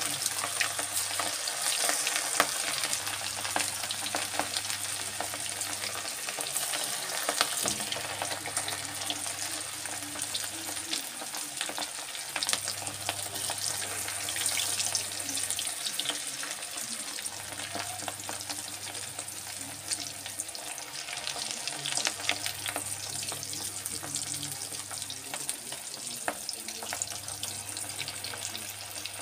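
Cornflour-coated boiled chickpeas deep-frying in hot mustard oil in a kadhai: a steady, dense sizzle full of small crackles.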